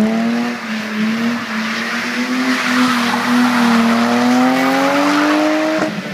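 BMW E30 325i's 2.5-litre straight-six held high in the revs while drifting, over the squeal of the rear tyres spinning on the asphalt. The engine note climbs slightly, then falls away sharply near the end.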